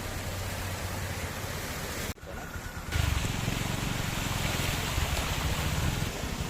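A moving vehicle's engine rumble with steady road and wind noise. The sound drops out briefly about two seconds in, then comes back with a louder low rumble.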